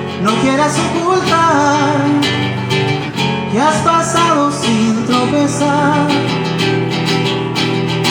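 Live song played on guitar, chords sounding steadily under a wavering melody line.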